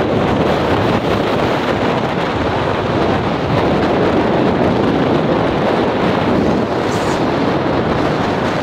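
Strong wind buffeting the microphone in a steady rush, over the wash of a churning, whitecapped sea.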